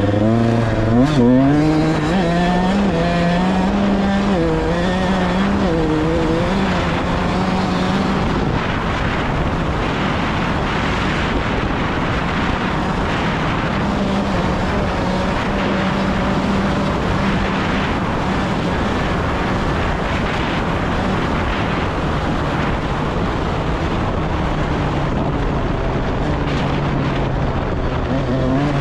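Off-road vehicle engine running under throttle while riding on sand. Its pitch rises and falls with the throttle for the first several seconds, then holds fairly steady, all under a constant rushing noise.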